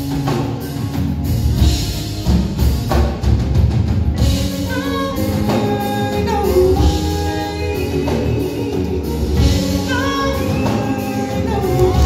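Live band with electric guitar, bass guitar and drum kit playing a song, heard from the audience in a hall. A male lead singer comes in on vocals about four seconds in.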